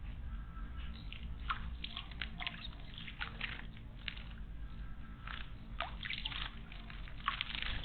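Water in a garden stone basin splashing and dripping in small, irregular splashes.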